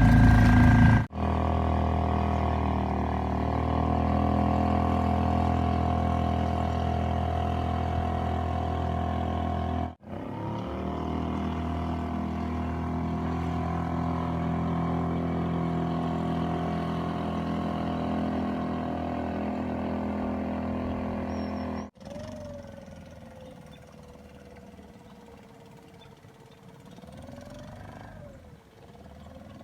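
Suzuki 2.5 single-cylinder four-stroke outboard motor running steadily, heard in several cut-together stretches. After the last cut it is much fainter, a thin drone that wavers in pitch.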